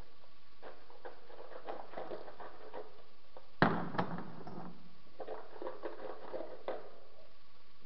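Hands handling a plastic tub, making light clicks and taps throughout. A sharp knock comes about three and a half seconds in, with a smaller one half a second later.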